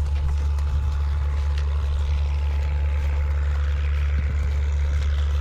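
Gale-force wind buffeting the microphone: a steady, loud low rumble that drowns most other sound, with a few faint knocks showing through.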